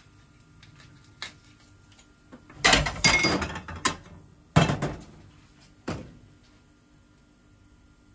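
Plates being shifted and set down on a stainless-steel kitchen counter. A rattling clatter starts about two and a half seconds in, followed by a sharp ringing knock and then a smaller knock.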